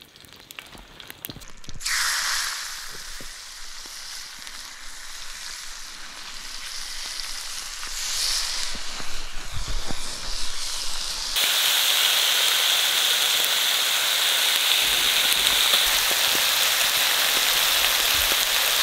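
Raw bacon strips sizzling as they are laid into a hot cast-iron skillet over a campfire. The hiss starts suddenly about two seconds in and turns louder and steadier about eleven seconds in.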